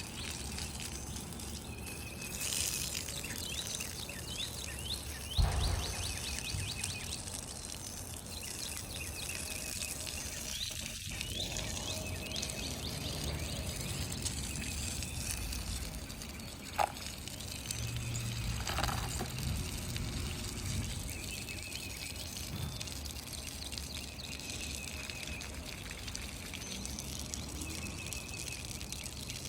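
Water running and trickling steadily onto a freshly poured concrete slab, wetting it down to cure. A bird trills a couple of seconds in, and there are two brief knocks.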